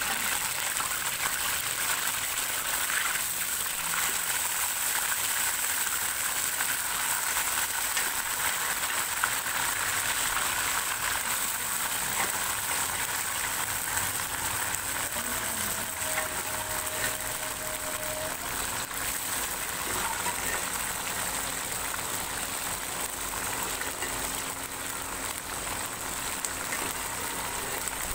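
Rabbit meat and its cooking liquid sizzling and bubbling in hot oil in an iron karahi, a steady hiss.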